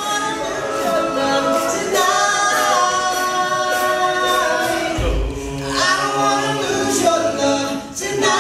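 All-male a cappella group singing a pop song in close harmony, several voices holding chords together with a lead voice on top.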